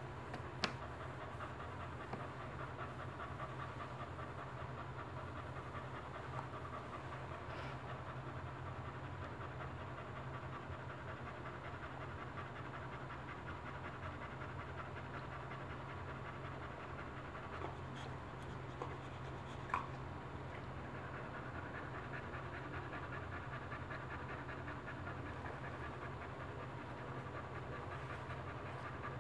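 Boxer bitch in labour panting steadily and rapidly through her open mouth.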